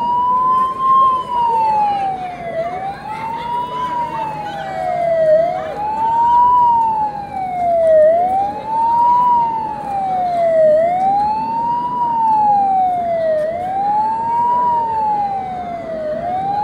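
A siren wailing: its pitch climbs quickly, then slides slowly down, over and over, about every two and a half to three seconds.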